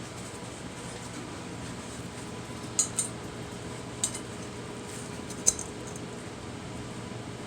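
Steady machine hum with four light metallic clinks, two close together about three seconds in, one about a second later, and the loudest near five and a half seconds.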